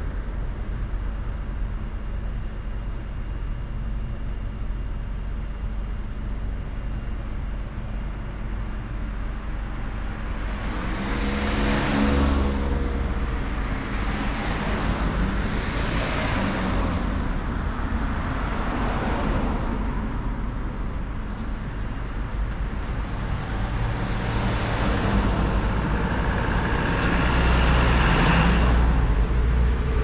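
Car driving through town traffic: steady engine and tyre-on-road noise that swells several times. An engine hum rises and falls about a dozen seconds in.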